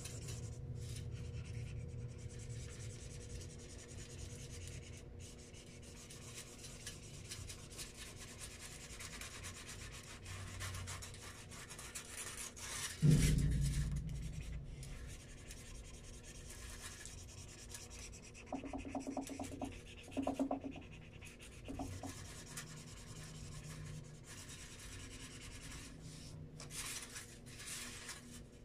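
Felt-tip marker rubbing back and forth on paper as an area is coloured in, with a single thump about halfway through.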